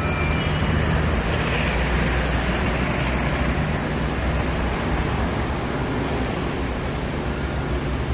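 Articulated electric street tram moving slowly along its track, a steady low hum with street traffic noise around it.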